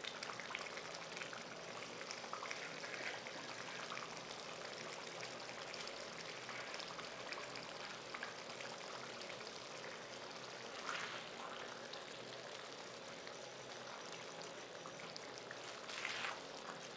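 A thick chicken, turnip and spinach curry simmering and sizzling in its pot with its liquid nearly cooked off, a steady bubbling hiss. A spoon stirs through it briefly near the end.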